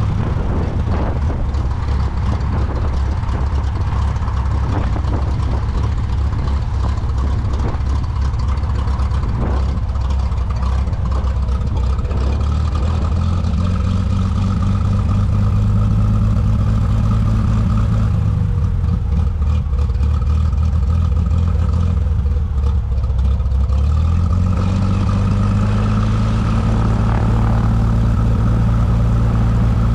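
Light aircraft's piston engine and propeller running steadily; the engine note drops a little past halfway and rises again about six seconds later.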